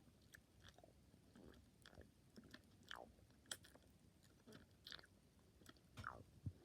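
Faint mouth sounds of chewing and sucking on a juice container, with several short squeaks that slide down in pitch and scattered small clicks.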